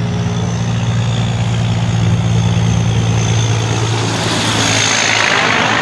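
Diesel engine of an American-style long-nose semi-truck pulling a trailer, running steadily as it drives by. A rushing noise of tyres and air grows from about four seconds in as the truck comes closer.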